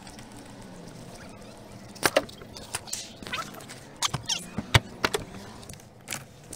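A run of sharp clicks and knocks as a car door is opened and someone gets into the driver's seat, starting about a third of the way in, with one loud knock about three-quarters through.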